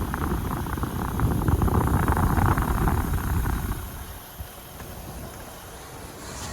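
Outdoor heat pump and mini-split condenser units running, with a loud rough rush for the first few seconds that dies down about four seconds in to a steadier hum and hiss.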